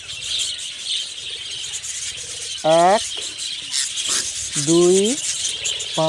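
Budgerigar chicks being taken out of a clay-pot nest, giving a steady high-pitched raspy chittering. A man's voice makes two short sounds, about three seconds in and again near five seconds.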